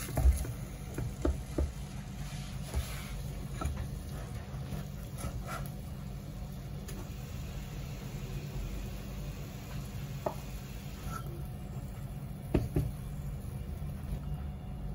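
Wooden spatula scraping and knocking against a stainless steel saucepan as thick risotto is stirred and scooped out onto a plate, with a few sharper knocks near the start and a pair about three-quarters through. Under it a low steady hum and a faint hiss that stops about eleven seconds in.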